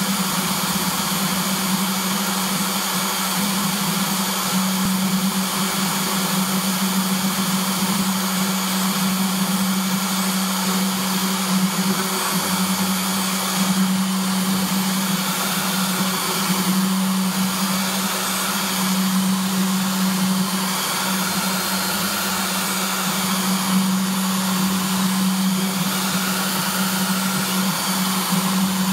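Desktop CNC engraver running: its small DC spindle motor hums steadily at speed, with faint tones rising and falling as the stepper motors drive the head along its axes.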